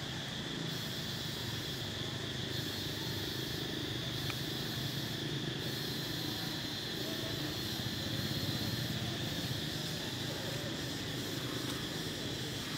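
Steady outdoor ambience: a constant high insect drone over a low, even rumble.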